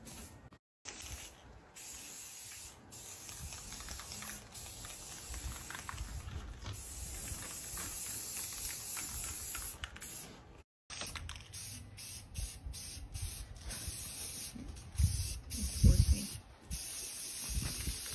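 Aerosol spray-paint can hissing as it sprays thick metallic gold paint onto a helmet, in long passes broken by short stops. Near the end a few low thumps are the loudest sound.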